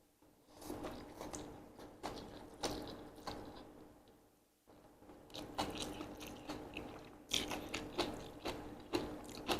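Chewing of chewy Korean sweet-potato glass noodles (japchae), with wet, clicky mouth sounds, in two spells with a short pause about halfway.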